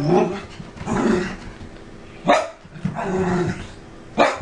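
Miniature poodle vocalizing in excited play: drawn-out growly grumbles about every second, with two short sharp barks, one a little past halfway and one near the end.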